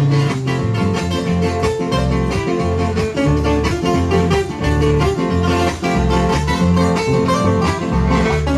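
Live band music: strummed acoustic guitars over an electric bass line, with a harmonica.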